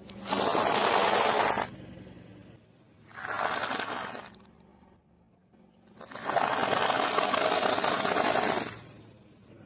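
A car tyre rolling over a heap of pale shredded food, crushing it with a crackling crunch. The crunch comes in three bouts, the middle one shortest and the last one longest.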